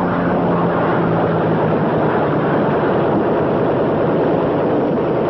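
Loud, steady drone of piston aircraft engines on an old film soundtrack, a dense rumble with a low held hum.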